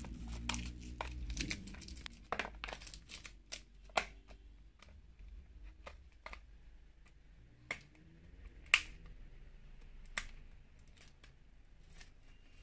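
Scissors snipping and packaging wrap crinkling as small foundation boxes are cut open: scattered sharp clicks and crackles, with the loudest snap about two-thirds of the way in.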